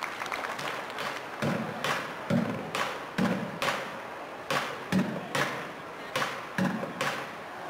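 Upturned plastic buckets and tubs struck with drumsticks: a sparse, uneven beat of deep thuds and sharper cracks, about two strikes a second, starting about a second and a half in.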